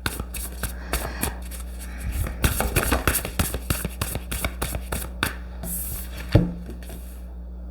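Tarot cards being shuffled and handled: a quick run of crisp paper flicks and clicks, then one louder tap a little past six seconds in.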